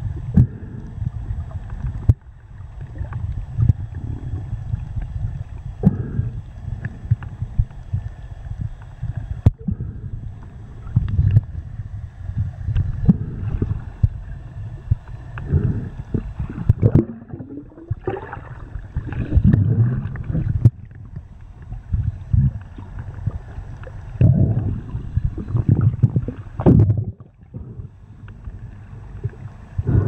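Muffled underwater rumble and sloshing of water against a submerged camera, coming in irregular low surges as it moves through shallow water, with a few brief sweeping tones about halfway through.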